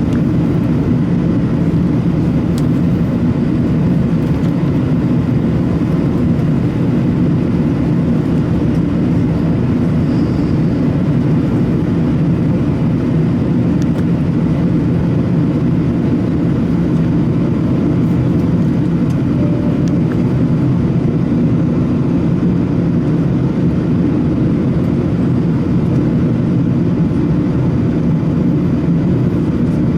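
Airbus A380 in flight, heard from inside the passenger cabin: a steady, even drone of its Rolls-Royce Trent 900 turbofans and the rushing airflow, deep and unchanging.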